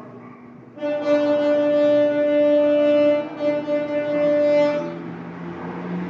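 Garbage truck's horn sounding a long, steady blast that breaks briefly and sounds again, about four seconds in all. The truck's engine is running underneath and carries on after the horn stops.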